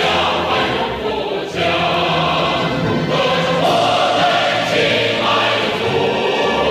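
A choir singing held notes with musical accompaniment.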